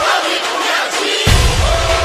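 Music: heavy drum beats with long held melodic notes, the drums dropping out for about the first second.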